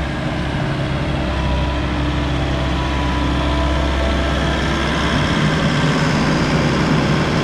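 Volvo ECR88D compact excavator's D2.6H diesel engine running steadily, with a thin whine that comes and goes. The engine note changes about five seconds in and grows slightly louder.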